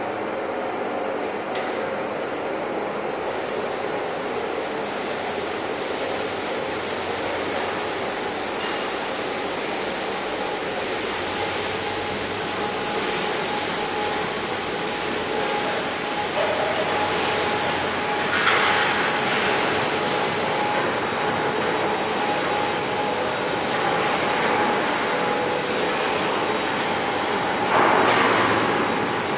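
Slaughter-line machinery running: a steady mechanical din with a few held squealing tones, the sound of metal rolling on rail, typical of an overhead conveyor. Two louder bursts of hiss come through, one about two-thirds of the way in and one near the end.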